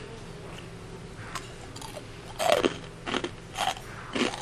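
Crunching and chewing of crispy sesame-coated fried chicken, its crust staying crisp even when cold. There are several crunchy bites, mostly in the second half, over a steady low hum.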